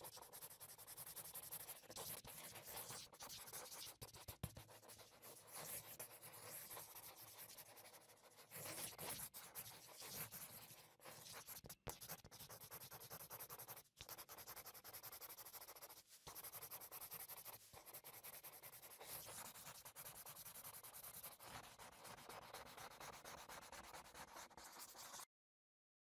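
Faint, continuous scratchy rubbing of a paintbrush working over paper, rising and falling with the strokes, then cutting off suddenly near the end.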